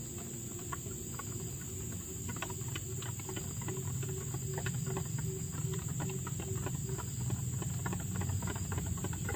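A steady high drone of insects over a low rumble, with many small irregular clicks and crackles, slowly growing a little louder over the first few seconds.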